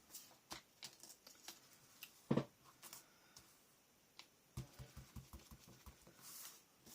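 Light, irregular taps and clicks of ink being dabbed through a butterfly stencil on paper, with one louder knock about two seconds in and a quick run of dabs near the middle. A brief papery swish comes near the end.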